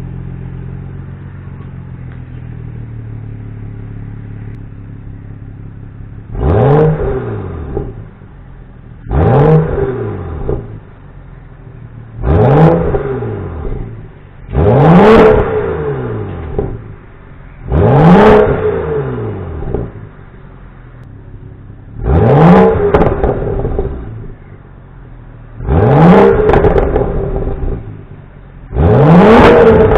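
2013 BMW 335i's N55 turbocharged straight-six with a catless downpipe, idling steadily for about six seconds, then blipped eight times in free revs. Each rev climbs quickly and falls back to idle.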